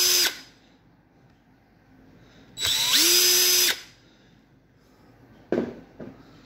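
Cordless drill-driver with a T10 Torx bit, backing out screws in short runs. One run ends just after the start, and another in the middle rises quickly in pitch, then holds steady for about a second before stopping. Two light knocks follow near the end.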